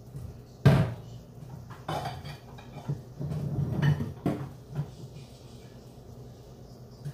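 Kitchen handling noises: one sharp bang under a second in, then a few seconds of knocking and rattling as things are moved about, then quiet.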